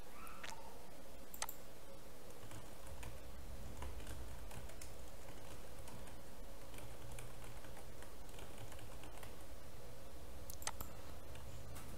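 Computer keyboard typing in short runs of keystrokes, with a couple of sharper single clicks, over a faint steady hum.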